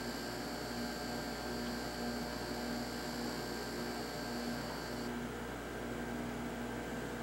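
Hughes HTT-1000-C04 reflow solder power supply and its heat bar under power, giving a steady electrical hum with a high-pitched whine while the bar is held glowing at 600 degrees. The whine cuts off suddenly about five seconds in as the heating cycle ends.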